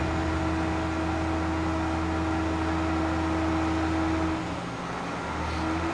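Electric drive of a torsion test rig humming steadily as it twists a twin-spring shaft coupling. The hum drops away about four and a half seconds in and comes back briefly near the end.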